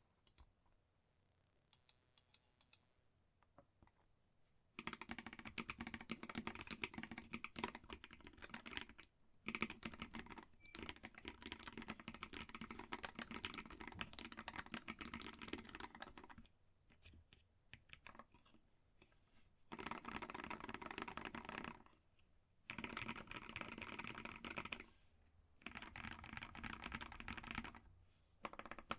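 Typing on a Keyball44 split mechanical keyboard with linear switches (Everglide Aqua King and Kailh Choc v1 Red Pro): rapid runs of keystroke clacks. A few faint clicks come first. Steady typing starts about five seconds in and breaks off with short pauses several times.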